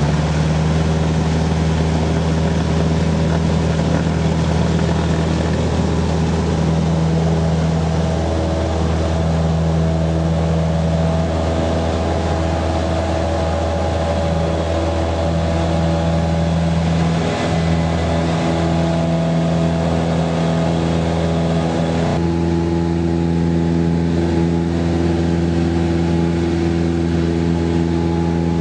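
Cessna 172's piston engine and propeller running at full takeoff power, heard from inside the cabin: a loud, steady drone through the takeoff roll and initial climb, with a slight change in tone about three-quarters of the way through.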